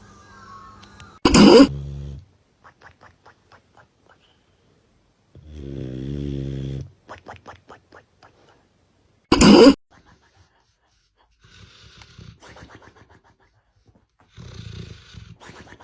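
Dogs snoring in a run of separate short episodes, one a drawn-out pitched snore about six seconds in, with soft clicking snuffles between. Two very loud brief bursts stand out, one about a second and a half in and another about nine seconds in.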